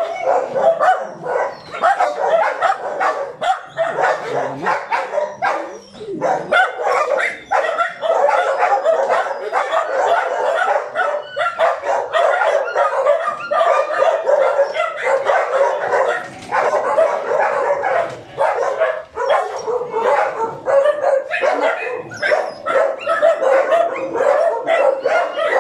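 Many dogs barking and yipping at once in a continuous overlapping chorus.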